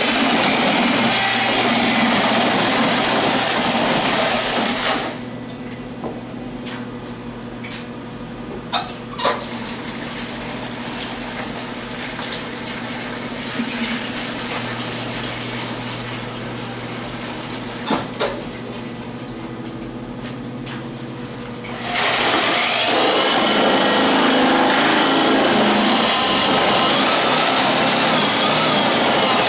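Corded electric drill with a paddle mixer running in a bucket of glaze slurry, a steady whine that stops about five seconds in. Water is then poured into the slurry from a plastic tub, with a few knocks. The drill starts again about three-quarters of the way through, revving up and mixing again.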